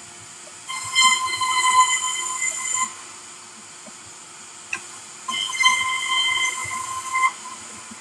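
Sawmill circular saw bench ripping wooden planks. The blade's high whine sets in twice under load, each cut lasting about two seconds, over the steady hum of the saw running free between cuts. A single sharp knock comes shortly before the second cut.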